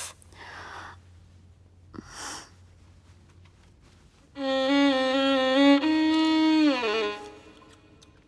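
Two short breathy sighs, then a violin plays a short comic phrase about four seconds in: a few held notes stepping up and down, ending in a downward slide.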